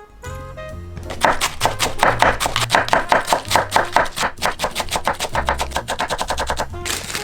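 Rapid, even knife strokes on a cutting board, about eight a second, as vegetables are chopped or shredded. They start about a second in and stop near the end, over background music.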